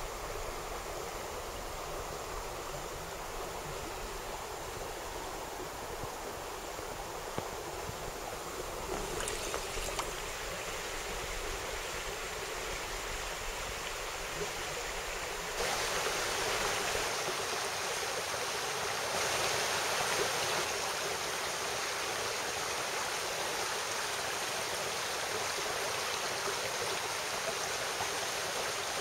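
Mountain stream water rushing over rocks, a steady hiss. The rush grows louder and brighter about halfway through, then holds steady.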